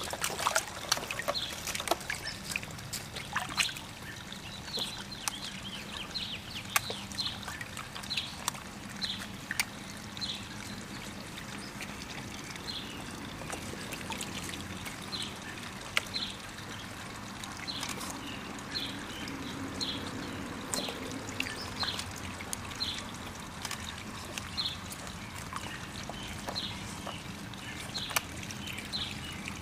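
Boston terrier snapping and lapping at the surface of a koi pond, making many small splashes and slurps of water. A bird chirps over and over in short, high, falling notes, roughly one a second.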